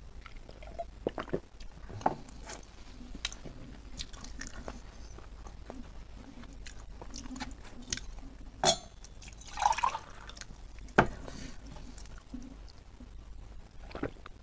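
Close-miked eating sounds: wet chewing, lip smacks and mouth clicks from eating pork, with gulps of water from a steel tumbler near the start and near the end. A few sharper smacks stand out near the middle.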